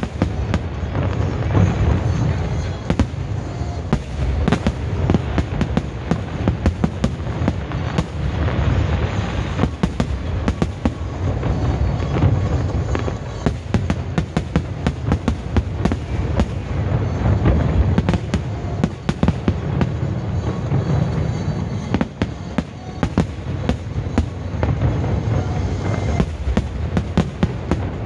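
Aerial fireworks bursting in a dense, continuous barrage: many sharp bangs in quick succession over a steady low rumble.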